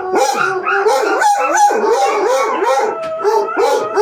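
Several dogs, basset hounds among them, howling and barking together in quick, overlapping bays, excited at someone coming into the house.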